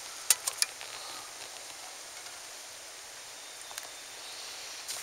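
Faint steady outdoor hiss broken by a few sharp clicks and rustles, a pair about half a second in and a louder one near the end.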